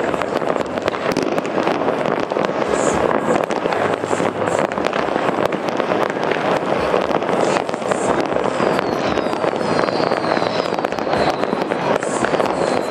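A dense barrage of fireworks: continuous overlapping bangs and crackling, with several whistles gliding downward in the second half.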